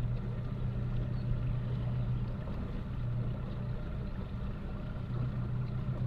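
A boat motor running steadily at low speed, a constant low hum, as the boat putts slowly around in circles.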